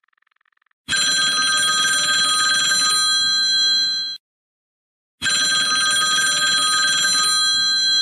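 Cellphone ringtone sound effect: a telephone-style ring, two rings of about three seconds each with a second of silence between them.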